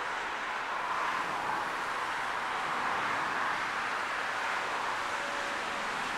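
Distant, steady rushing of a twin-engine business jet's turbofan engines as it rolls out along the runway after landing.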